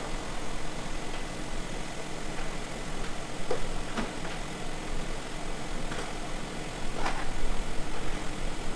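Kia Ray 1.0-litre petrol engine idling steadily with the air conditioning running at full cold and maximum fan, with a few brief clicks.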